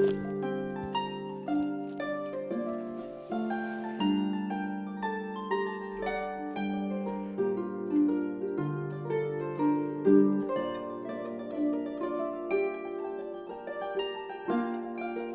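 Background music: a gentle melody of plucked harp-like notes over sustained lower notes.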